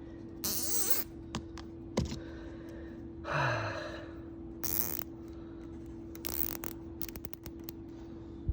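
A jumbo plastic zip tie is handled and pulled tight around a tube, ending in a quick run of ratchet clicks near the end. Rustling and scraping bursts and a single sharp click come before it, over a steady low hum.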